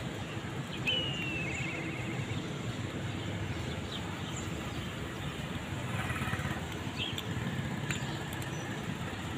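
Steady low rumble of traffic. About a second in, a bird gives a falling chirp followed by a quick trill, and a few short sharp clicks come later.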